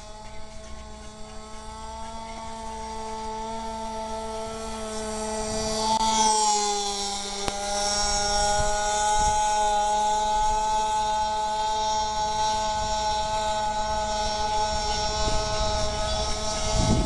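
Radio-controlled spec racer boat's small engine running flat out, a steady high whine that grows louder as the boat approaches and drops in pitch as it passes close about six seconds in, then holds steady as it runs off.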